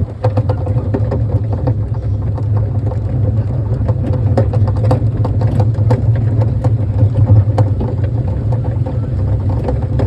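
Kiddie train running: a steady engine hum with irregular rattling and clicking throughout.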